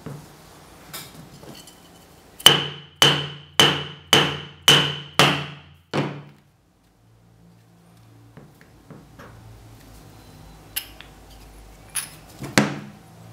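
Seven sharp taps, about two a second, with a short ringing, on the end of a metal push rod driving a cast piston out of a glass test tube. A few lighter clicks of rod and glass follow near the end.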